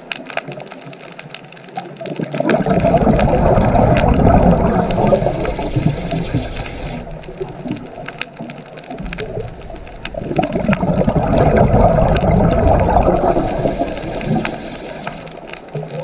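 Underwater water noise: rushing, gurgling water that swells up about two and a half seconds in, eases off, and swells again about nine seconds in, with scattered faint clicks throughout.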